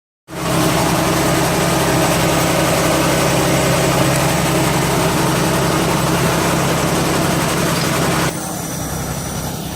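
An engine running steadily with a low hum. About eight seconds in, the noise drops suddenly to a quieter, duller running sound.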